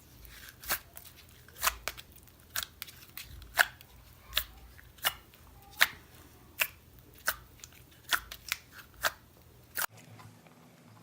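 Slime being squeezed and folded by hand, giving a string of sharp pops and clicks as trapped air bubbles burst, roughly one or two a second, with a cluster of quicker pops a little past the middle.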